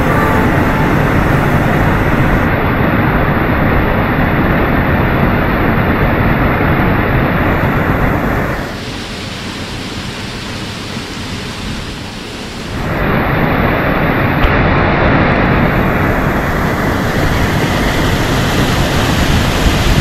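Waterfall pouring into a rock plunge pool: a steady, loud rushing of water close to the microphone. It drops quieter for about four seconds in the middle, then returns to full strength.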